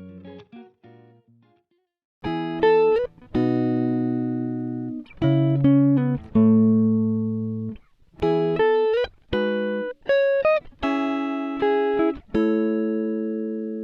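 Background music: a guitar playing a melody of single plucked notes that ring and fade, with a short pause about two seconds in.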